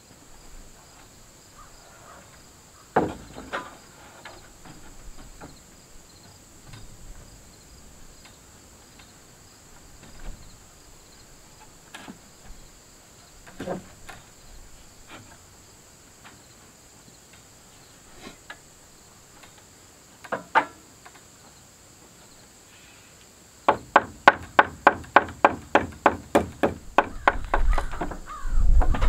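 Nailing into wooden wall framing: scattered single knocks, then near the end a quick, even run of blows, about four a second. A steady high buzz of insects runs underneath.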